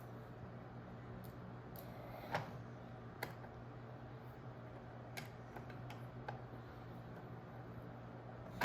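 Scattered light clicks and taps from handling a small plastic toy, a few each second or so, over a steady low hum.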